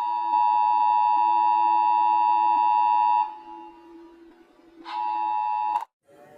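Slowed-down Emergency Alert System attention signal: a steady two-tone beep held for about three seconds, then sounding again briefly near the end before it cuts off suddenly. A lower steady tone runs beneath it.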